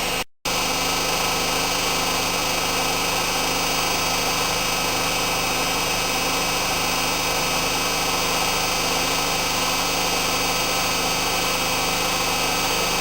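Hoover Inter@ct washing machine spinning, its motor (taken from a Candy Alisée) giving a steady whine of several pitches over drum and air noise. The sound drops out for a moment just after the start.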